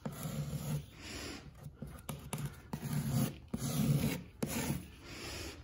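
Putty knife scraping and rubbing caulk across a textured wall in a series of short strokes, filling a crack.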